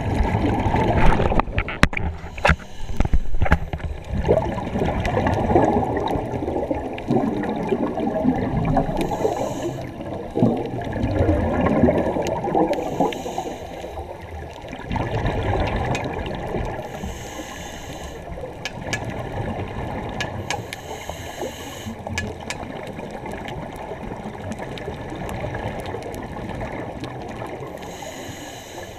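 Scuba exhaust bubbles gurgling irregularly underwater, heard muffled, with most of the sound low and dull. It is heaviest in the first half and settles to a steadier, quieter bubbling later.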